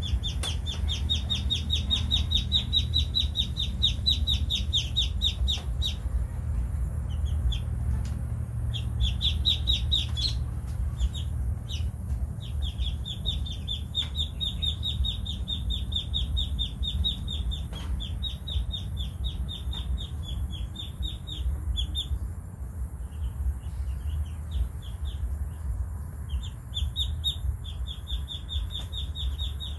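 Ducklings peeping in long runs of rapid, high-pitched peeps, with a few short breaks, over a steady low background rumble.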